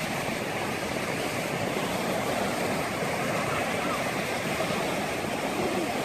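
Steady rush of sea waves breaking on a sandy shore.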